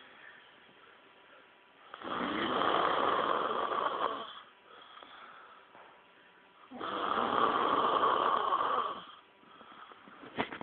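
A sleeper snoring: two long, drawn-out snores about two seconds each, several seconds apart, with quiet breathing between them. A short click comes near the end.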